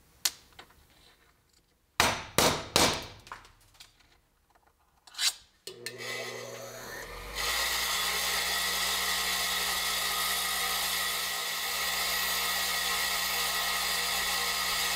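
A few sharp knocks and clicks of tools or parts being handled on a bench, then a power tool starts about six seconds in, grows louder a second later and runs steadily.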